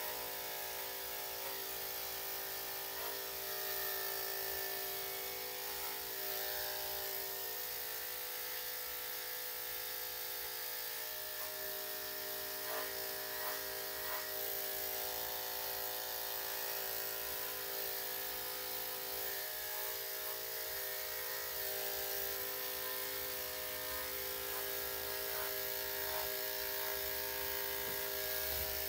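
Electric dog grooming clippers fitted with a #10 blade, running with a steady hum while shaving a Shih-Tzu/Poodle's face, with a few faint ticks of the blade against the coat.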